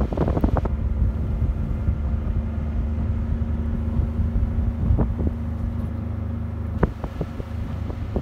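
Ford King Ranch pickup truck heard from inside the cab while driving on a snow-covered road: a steady low engine and road hum, with two short knocks, one about five seconds in and one about seven seconds in.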